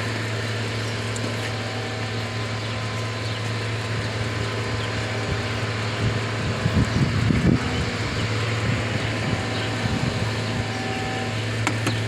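Engine idling with a steady low drone, and a stretch of louder, uneven low rumbling a little past the middle.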